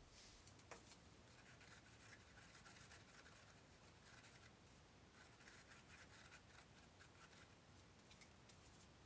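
Faint scratchy rubbing of a paintbrush working acrylic paint on a canvas and mixing it on a paper plate, in repeated strokes against near silence.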